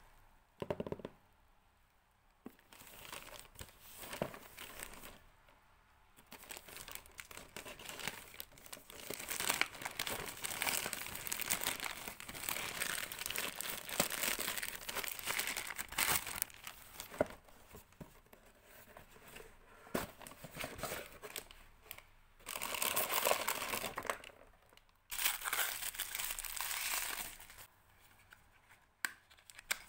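Packaging being handled and unwrapped by hand: plastic or paper crinkling, with tearing sounds, in irregular spells that are loudest in the middle and in two short bursts near the end.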